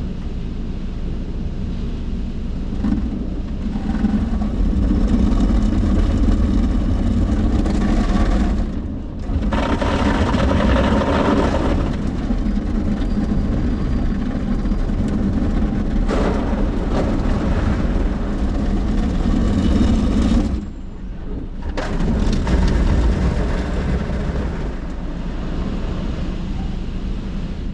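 Soft-touch automatic car wash heard from inside the car: water spraying and running over the windshield over a steady low rumble of the wash machinery. The spray drops away briefly about nine seconds in and again about twenty-one seconds in, then picks up again.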